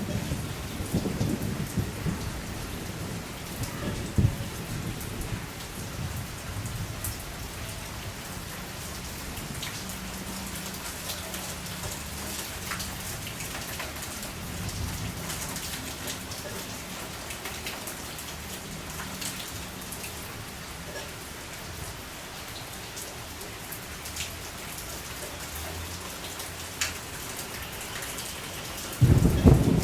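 Steady rain falling, with scattered sharp drips hitting a surface. A low rumble sits under it at the start and swells suddenly louder just before the end.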